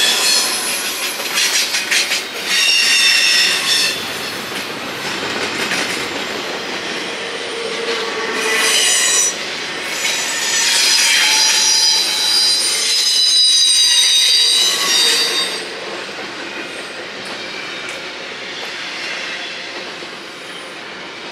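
Double-stack intermodal freight train rolling past with a steady rumble, its wheels squealing in high, wavering metallic tones. The squeal is loudest in the first few seconds and again from about 8 to 15 seconds in, then eases.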